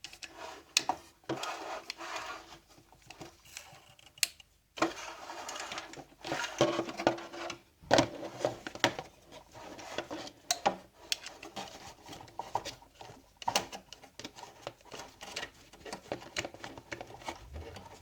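Hands and tools working on the dismantled espresso machine's boiler: irregular clicks, small knocks and scraping of metal and plastic parts.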